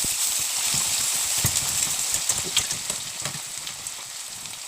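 Chopped onions sizzling and crackling as they fry in hot ghee in a kadhai, the sizzle easing off a little toward the end.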